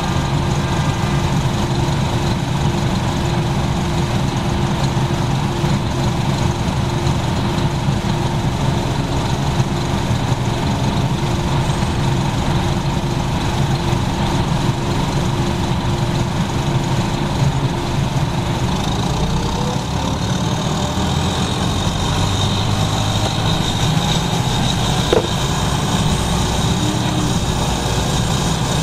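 1996 NovaBUS RTS-06 transit bus with a Detroit Diesel Series 50 and Allison V-drive transmission, heard on board: the diesel runs steadily, then about two-thirds of the way through the bus speeds up and a whine from the transmission gearing rises in pitch. The recordist took that gear whine as a sign of a bus on its last legs.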